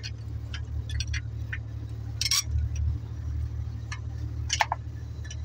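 A metal spanner clicks and clinks irregularly against the injector-pipe fittings of a four-cylinder diesel engine, with a louder clank about two seconds in and another near the end. A steady low engine hum runs underneath.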